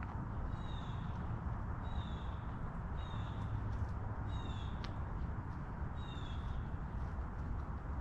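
A bird calling, a single slurred falling note repeated about every second and a half, over a steady low background rumble.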